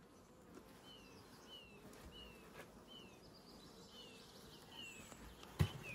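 A small bird calling faintly outdoors: a run of short, falling chirps, about two a second. A single sharp knock comes near the end.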